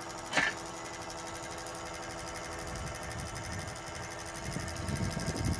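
Hydraulic drive head turning a helical pier shaft down into the soil: a steady mechanical hum made of several held pitches, with one sharp knock about half a second in.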